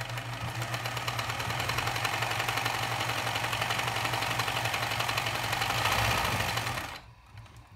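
Pfaff 209 sewing machine running steadily at speed, sewing a straight stitch through two layers of thin fabric: motor hum with fast, even needle ticking. It stops near the end.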